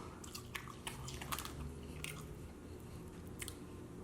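Close-miked wet chewing and lip smacking of someone eating chicken wings open-mouthed, with irregular sharp smacks and squishes, several in a row in the first second and a half and another near the end.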